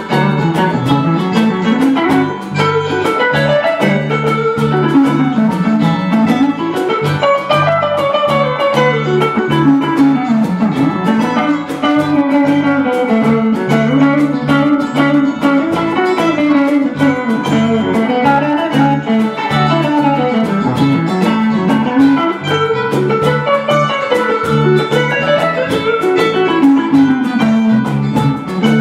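Live band playing an instrumental passage: electric guitars pick runs of notes that climb and fall over and over, over a steady low bass line and a cajón beat.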